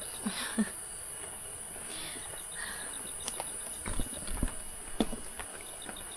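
Forest insects: a steady high-pitched drone with a rapid chirping trill over it, broken by a few scattered knocks and soft low thumps.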